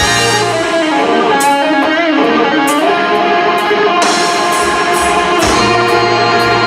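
Live blues band playing an instrumental passage, with an electric guitar lead over keys, bass and drums. The low bass and drum part drops out for a few seconds mid-passage and then comes back in.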